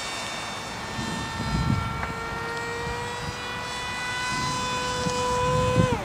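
An RC lifting-body blended-wing model plane flying overhead: a steady whine from its motor and propeller, rising slightly in pitch, then dropping sharply near the end. Two brief low rumbles come in, one early and one just before the pitch drop.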